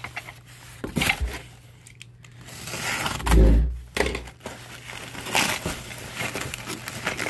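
Brown kraft paper and packing tape crinkling and tearing as a long wrapped parcel is handled and unwrapped inside a cardboard box, with one dull thump about three and a half seconds in.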